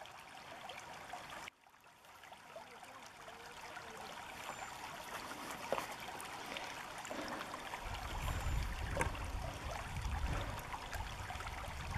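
Shallow river running steadily, a soft rushing water sound, with a few faint splashes as a salmon is held and handled in the water. A low rumble joins in about two-thirds of the way through.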